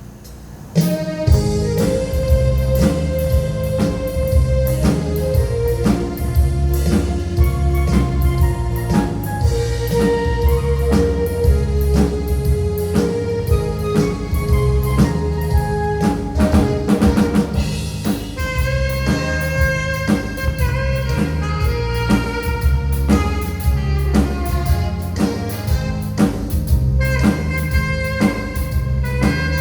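Live band music: an alto saxophone playing a melody over keyboard accompaniment and a drum kit, kicking in about a second in after a short quiet pause.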